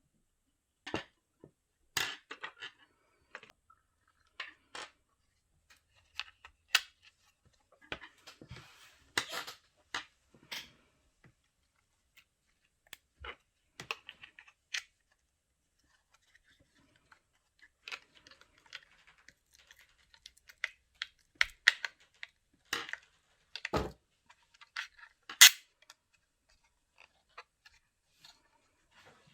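Small hard plastic parts being handled and fitted together by hand: irregular clicks and taps with a few louder knocks, the loudest near the end.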